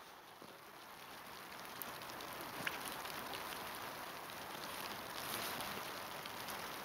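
Faint steady hiss of outdoor woodland ambience, growing slightly louder, with a few small scattered clicks and crackles.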